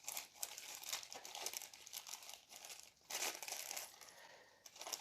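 Plastic parts bag crinkling as a model kit's rubber tires are handled in it, irregular crackles with a louder handful about three seconds in.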